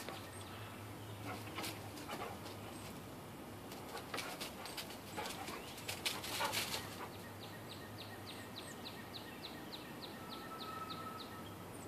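Faint outdoor sounds of a dog moving about in dry leaves and mulch, with scattered rustles and clicks and a louder rustle about six seconds in. In the second half a songbird repeats a short high note three or four times a second for about four seconds.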